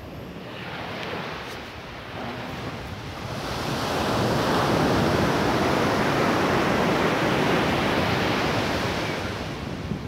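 Ocean surf breaking on a sandy beach and washing up the shore. A wave swells loud from about three seconds in and eases off near the end.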